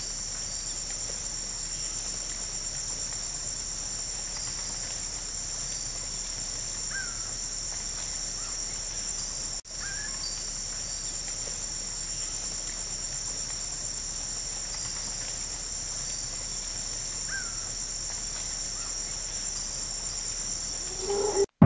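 Steady, high-pitched chorus of insects, with a few faint short chirps over it. The sound breaks off for an instant about ten seconds in.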